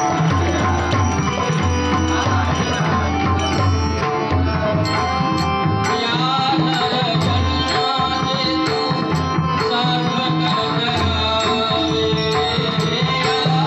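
Devotional Marathi bhajan music in a slow tempo: sustained harmonium tones over regular hand-drum strokes from tabla and a barrel drum, with small hand cymbals clicking on the beat.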